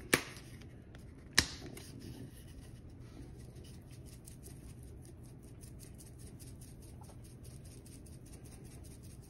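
Italian seasoning being shaken from a spice shaker jar over a bowl of sauce: two sharp clicks in the first second and a half, then a long run of quick, soft ticks, several a second, as the dried herbs rattle out.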